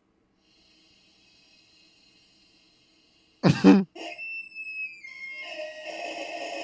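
A single loud cough about three and a half seconds in. After it a short falling tone sounds and music starts up.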